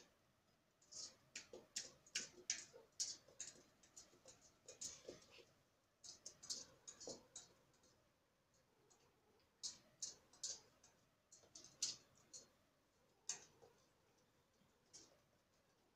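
Kooikerhondje puppies lapping from a stainless steel bowl: faint, quick clicks of tongue and mouth against the metal in irregular runs, broken by short pauses.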